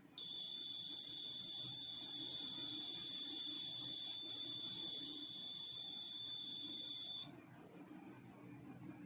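Piezo buzzer on an Arduino alert board sounding one continuous high-pitched tone for about seven seconds, then cutting off suddenly: the high-heart-rate alarm going off while the GSM module sends the alert SMS.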